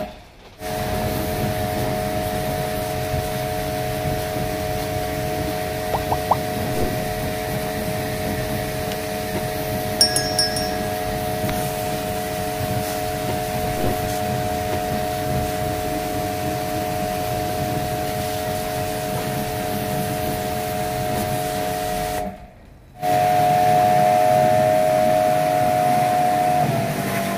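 Electric pressure washer running steadily: a motor whine of a few steady tones under the hiss of the water jet spraying an air-conditioner outdoor unit. The sound cuts out briefly near the start and again about 22 seconds in, then comes back louder.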